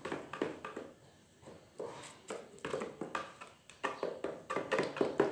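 Wooden stick stirring resin in a cut-open plastic gallon jug, knocking and scraping against the plastic walls in a rapid, irregular run of taps, with a brief lull about a second in. Aerosil (fumed silica) powder is being mixed into the resin to thicken it for gel coat.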